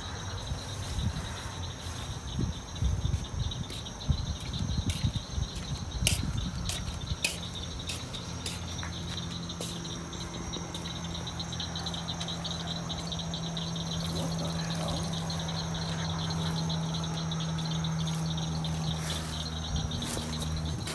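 Night insects trilling steadily in high-pitched bands, with rustling and a few sharp clicks of handling in the first seconds. A steady low hum joins about eight seconds in.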